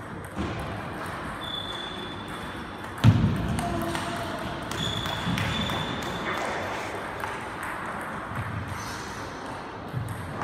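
Table tennis balls clicking off bats and tables in a large sports hall, with one loud thump about three seconds in and two short high squeaks. Faint voices in the background.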